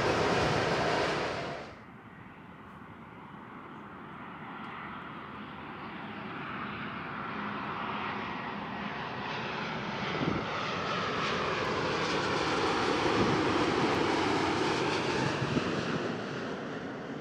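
Airbus A380 jet noise that cuts off abruptly a little under two seconds in. Then a Boeing 787 Dreamliner landing, gear down: its jet engines grow steadily louder as it closes in, with a whine falling in pitch as it passes, fading slightly near the end.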